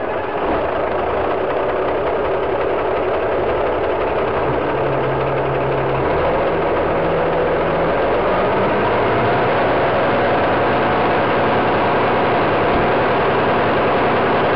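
Engine running loud and steady close by, its pitch shifting slightly partway through.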